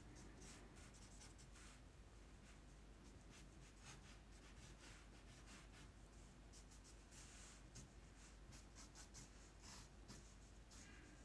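Faint scratchy hiss of a felt-tip marker drawing short, irregular strokes on paper.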